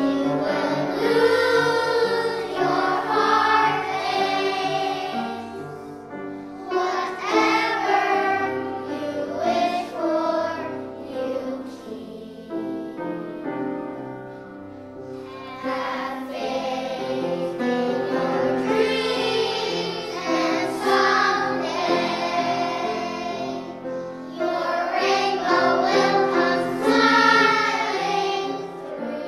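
Children's choir singing a song in phrases, over a steady lower accompaniment; the voices drop back to a softer stretch about halfway through before coming in strongly again.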